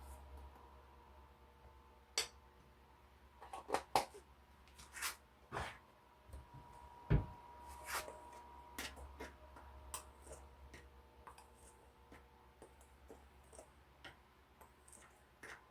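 Scattered light clicks and knocks of kitchen utensils and containers being handled while dry breading ingredients are measured and mixed, with one louder knock about seven seconds in. A faint steady hum runs underneath.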